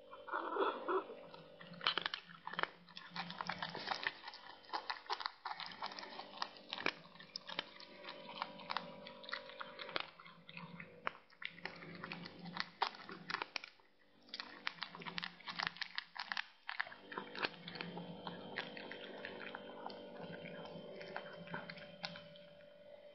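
A cat chewing and crunching on something in its mouth: quick, irregular crunches with a couple of short pauses.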